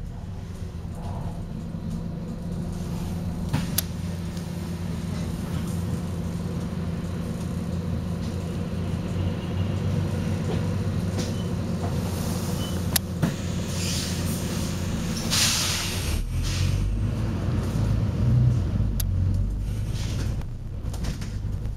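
Volvo B9TL double-decker bus idling with a steady engine note and a couple of sharp clicks. Past the middle its air system lets out a hiss, strongest for about a second, and then the engine note rises and gets louder.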